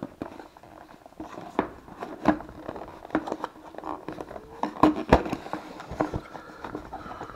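Cardboard box being opened by hand: the tucked-in lid flap is worked loose and lifted, with scraping and rustling of cardboard and a run of sharp taps and clicks, loudest about five seconds in.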